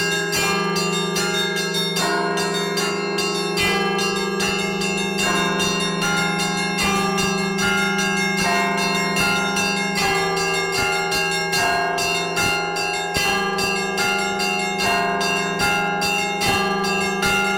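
Russian festive church bell ringing (prazdnichny zvon) played by one bell-ringer: smaller bells are struck in a fast, steady rhythm, about two to three strikes a second, over the sustained hum of larger bells.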